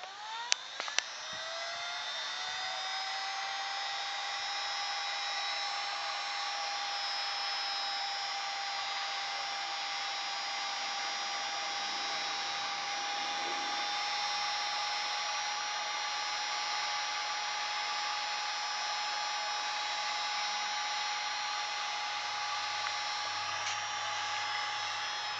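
Electric heat gun switched on with a couple of clicks, its fan motor rising in pitch over about two seconds and then running with a steady whine while it shrinks heat-shrink tubing over a crimped cable lug.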